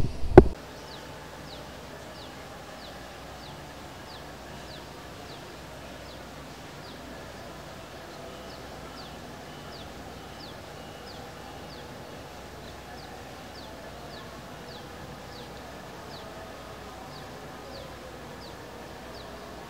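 A sharp knock right at the start, then steady background hiss with a small creature's short high-pitched call repeating about twice a second, each note falling in pitch.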